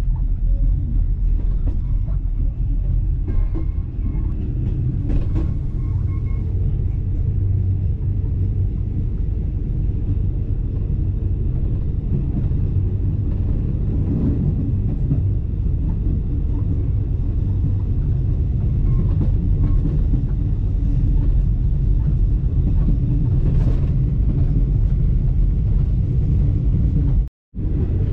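Steady low rumble of a passenger train running along the line, heard from inside a carriage, with a few faint clicks. The sound cuts out briefly near the end.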